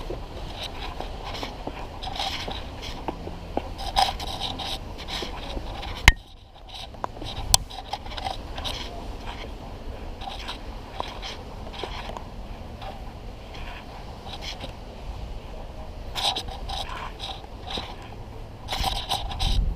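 Scraping and rubbing handling noise on a handheld camera's microphone, with a few sharp knocks, over a steady low wind rumble.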